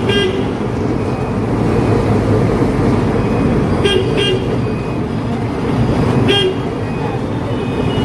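Heavy truck engine running steadily under way, heard from the driver's cabin, with short horn toots: a quick double toot at the start, another double toot about four seconds in, and a single toot about six seconds in.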